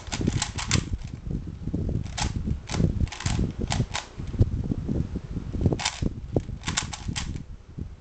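A plastic 3x3 Rubik's cube clacking as its layers are turned fast in a speedsolve, in quick runs of clicks with short pauses between them.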